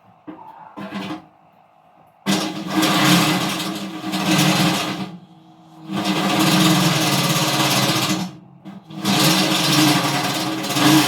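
Electric drill running under load in three bursts of two to three seconds each with short pauses between, drilling a hole through metal.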